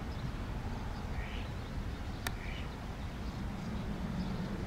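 Airbus A320-214's CFM56-5B turbofan engines at takeoff thrust on the takeoff roll, a steady distant low rumble. Faint bird chirps come twice, and there is a sharp click a little after two seconds in.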